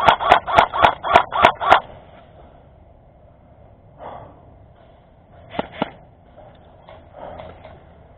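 Airsoft gun firing a rapid string of about eight sharp shots in under two seconds, then a quick pair of shots a little past halfway.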